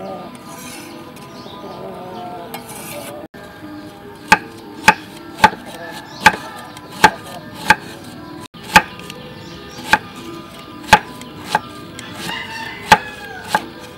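A cleaver slicing lemongrass on a wooden chopping block: starting about four seconds in, about a dozen sharp knocks of the blade striking the block, roughly one every half second to a second.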